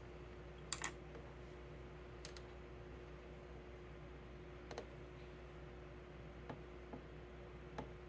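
A few scattered clicks and light taps from handling fabric pieces at a sewing machine, two close together about a second in, over a faint steady hum.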